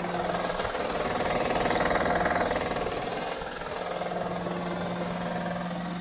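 Honda Odyssey V6 engine running with the hood open, with a knocking noise that the owner suspects comes from a failing timing belt tensioner. The engine sound swells louder about two seconds in, then settles back to a steady hum.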